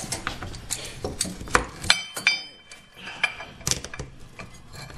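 Steel arms and jaws of a gear puller clinking and knocking against each other and the golf cart's driven clutch as the puller is fitted: a run of sharp metal clicks, with a couple of ringing clinks about two seconds in.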